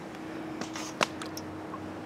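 A metal spoon clinks sharply once against an enamel camp mug of soup, with a brief swish just before it and a couple of lighter ticks after. A steady low hum runs underneath.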